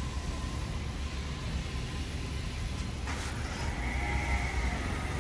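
Low steady rumble of street traffic, with a short rush of noise about three seconds in and a steady high tone starting near the end.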